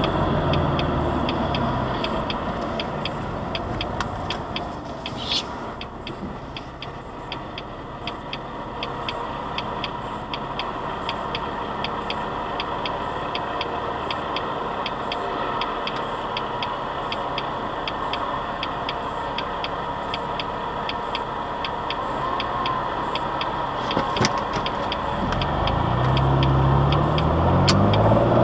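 Turn-signal indicator ticking steadily in the cabin of a 2003 Jaguar X-Type 2.5 V6 manual, over the engine idling. The engine note drops at the start as the car slows, and rises near the end as it pulls away.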